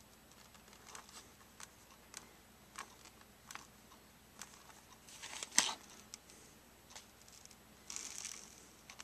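Fingertips tapping and pressing on a cracked, unresponsive tablet touch screen, with light crinkling of the loose cracked glass: faint scattered taps, a louder one a little past halfway, and a brief hiss near the end.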